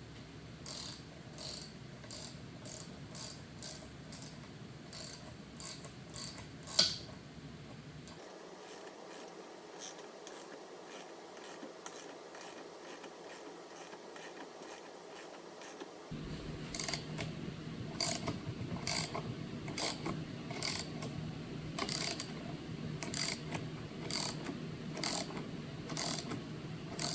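Repeated sharp mechanical clicking, about two clicks a second, with one louder click near seven seconds. It pauses for a quieter stretch in the middle, then starts again over a low hum.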